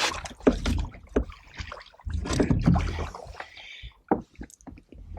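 Water splashing and sloshing around a canoe, with handling noise and several sharp knocks against the hull.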